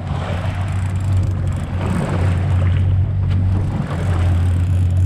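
A sportfishing boat's engine running steadily, a constant low drone, with a rushing hiss of wind and water over it.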